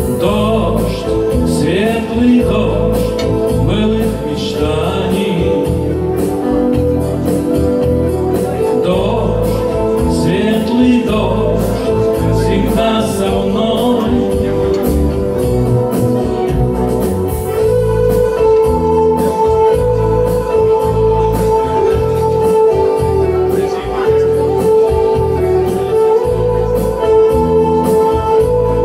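Live song performance on a steel-string acoustic guitar, with a melodic line that bends in pitch in the first half, long held chords in the second half, and a steady low accompaniment underneath.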